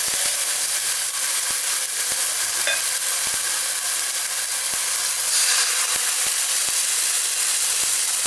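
Thin chicken breast slices sizzling in a hot frying pan in their mustard-oil marinade: a steady frying hiss dotted with small pops and spits, swelling briefly a little past the middle.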